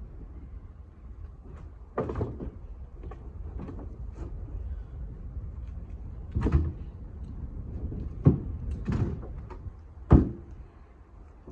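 Split firewood chunks knocking and thudding as they are handled and tossed, eight or so irregular wooden knocks a second or more apart, the loudest near the end, over a steady low wind rumble.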